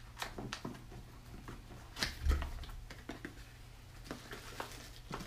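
Cardboard product box being handled and opened: scattered light clicks, taps and rustles of cardboard and packaging, with one louder knock about two seconds in.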